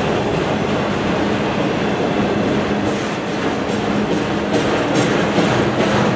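Freight train autorack cars rolling past on steel rails: a steady noise of wheels on track over a low steady hum. Sharp clicks of wheels crossing rail joints set in about four and a half seconds in.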